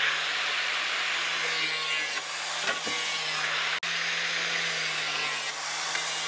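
Angle grinder running steadily while it cuts, a constant motor whine under a dense hiss.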